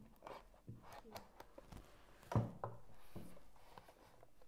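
Faint handling of a small paperboard box: a knife blade scraping and ticking along its sealed edge and the flaps being worked open, a series of small clicks and rubs with the loudest about halfway through.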